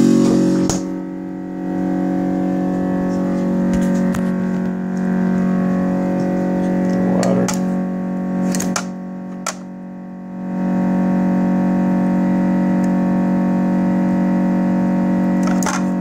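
Frigidaire side-by-side refrigerator making a loud, steady droning hum, the loud noise it has developed; the hum eases for a couple of seconds around the middle. A few sharp clicks of ice cubes dropping from the dispenser into a glass, several together near the end.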